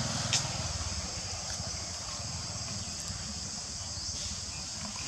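Steady high-pitched insect chorus droning, with a low rumble underneath and a single faint click about half a second in.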